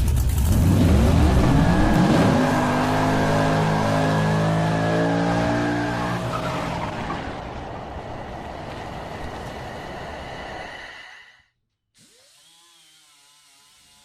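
A car engine revving hard with a high tire squeal, then settling and fading before cutting off suddenly about eleven seconds in.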